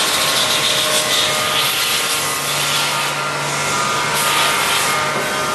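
Machine-shop machinery noise: a loud rushing hiss, with a low steady hum joining about two seconds in.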